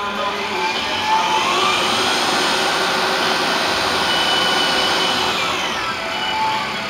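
Treadmill DC motor driving a round-column mill/drill, its whine rising in pitch as the variable speed is turned up about a second in, holding steady, then falling as the speed is turned back down near the end.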